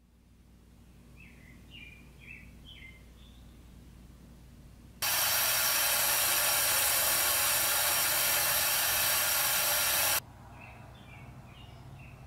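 Birds chirping faintly. About five seconds in, a bathroom sink faucet starts running loudly with a steady hiss, then cuts off suddenly about five seconds later, and the chirping returns.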